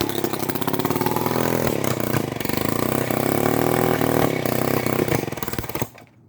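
Lombard 35 gear-drive chainsaw's two-stroke engine running rough and unevenly on half choke, its speed wandering up and down, then cutting off suddenly near the end. It barely keeps itself running, the sign of low compression (about 60 psi) and ignition timing thrown far off by a stator plate out of rotation.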